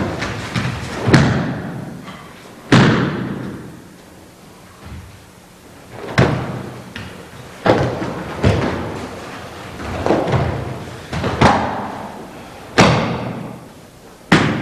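A series of heavy thuds, about nine sharp impacts spaced one to three seconds apart, each dying away over about a second.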